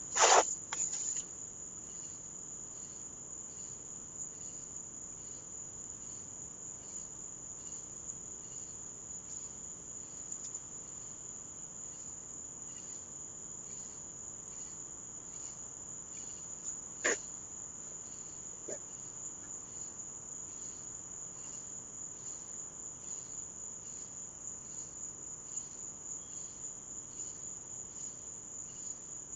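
A steady chorus of night insects trilling high and continuously, with a regular pulse in it. A sharp knock with a couple of smaller knocks follows right at the start, and a single click comes about halfway through.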